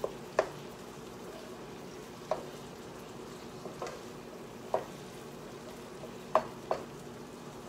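Ground beef sizzling softly as it browns in a skillet, with sharp clacks of a wooden spatula against the pan every second or two as it is stirred and broken up.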